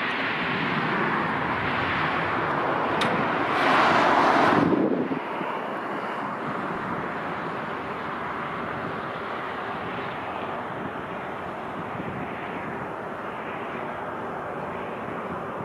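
Airliner jet engine noise heard as a steady rush, with wind buffeting the microphone. A louder burst of noise about four seconds in stops abruptly.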